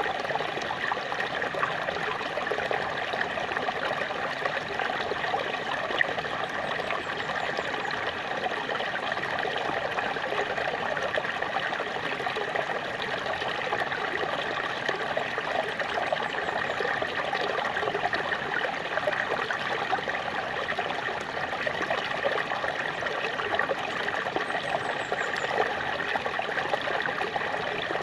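Small waterfall: water falling and trickling, a steady, even rush that never pauses.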